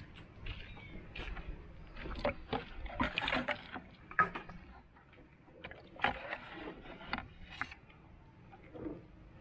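Water splashing and sloshing in a plastic bucket as a small plastic watering can is dipped in and filled, with irregular splashes and light plastic knocks.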